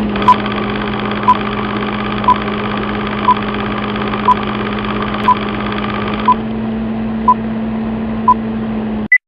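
A steady electronic hum with a short, even beep once a second, nine beeps in all. The hum changes slightly about six seconds in, then cuts off suddenly and is followed by a single brief higher beep.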